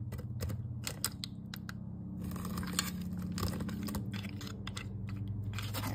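A metal spoon spreading ricotta mixture over uncooked penne in a slow cooker: an irregular run of light clicks and scrapes as it knocks against the dry pasta and the crock. A steady low hum runs underneath.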